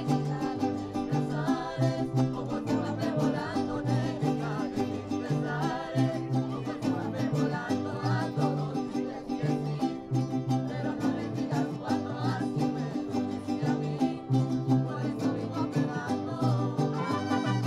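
Live mariachi band playing: strummed guitars and violins over a steady, bouncing bass line.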